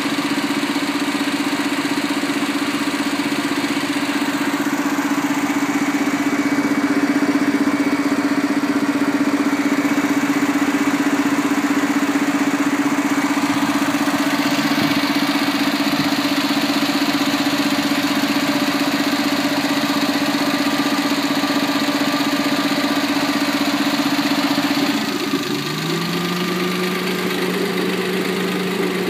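Suzuki Alto Works (HB21S) three-cylinder turbo engine idling, heard at its open-type air cleaner, with a popping "poko-poko" sound to the fore. About 25 seconds in the tone changes suddenly and a lower steady hum takes over.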